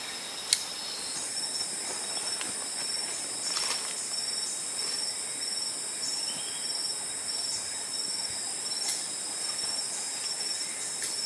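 Rainforest insect chorus: a steady high-pitched drone with a high chirp pulsing over it in an even rhythm. A single sharp click sounds about half a second in.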